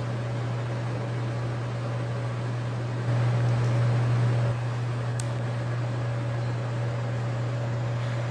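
Steady low hum of ventilation machinery, which gets louder for about a second and a half about three seconds in. A single faint click about five seconds in.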